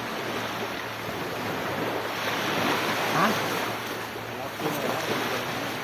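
Sea waves washing onto a sandy beach, with wind buffeting the microphone; a wave surges in louder about two seconds in.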